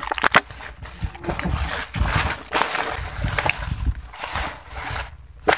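Rustling and crackling noise with scattered clicks and knocks over a low rumble, dropping out briefly near the end.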